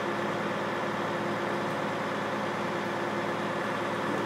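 A large engine idling steadily, an even hum that holds the same pitch throughout.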